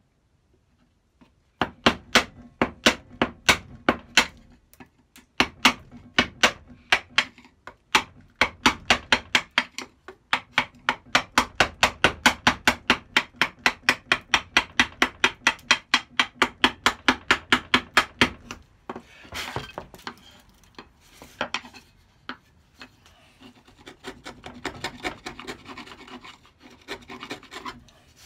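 A bench chisel paring waste out of a dado channel in oak. Short strokes come in a quick, even run of sharp clicks, speeding up to about four or five a second. In the last third they give way to slower, scratchier scraping.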